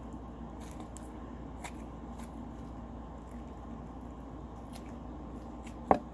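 Soft homemade slime being kneaded and stretched by hand, with quiet squishing and faint sticky clicks. A short, sharp, louder sound comes just before the end.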